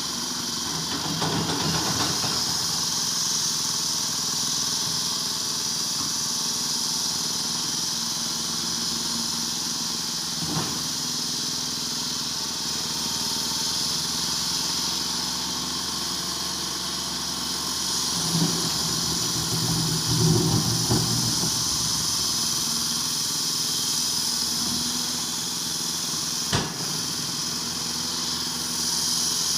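Caterpillar 330 GC excavator's diesel engine running steadily under a constant hiss. It grows louder and heavier twice, briefly near the start and again for a few seconds about two-thirds through. Two sharp knocks come at about a third and near the end.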